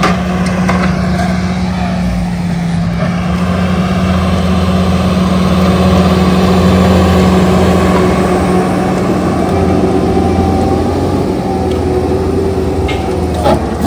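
Bobcat skid steer's diesel engine running steadily at high revs, driving a Coneteks hydraulic ground-grinding attachment as it mills stumps and soil.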